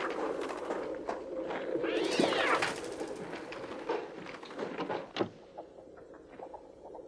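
Electronic bird cries synthesised on a Mixtur-Trautonium: a dense chatter of squawks and clicks over a steady hum. About two seconds in comes one loud screech that rises and falls, and the chatter fades in the last second or two.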